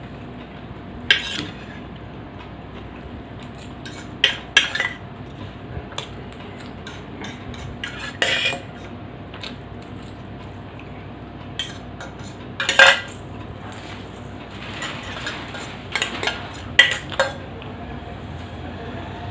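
Cutlery clinking and scraping against a plate while a plate of macaroni is eaten. The clinks come in scattered single strokes and short clusters a few seconds apart, over a steady faint hiss.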